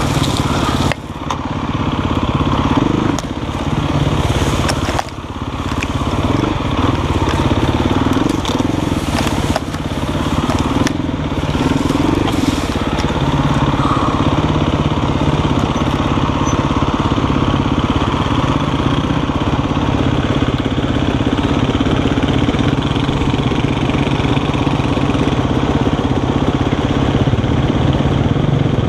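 Dirt bike engine running steadily at a low, even speed, with leaves and branches crackling and scraping against the bike and camera over the first dozen seconds.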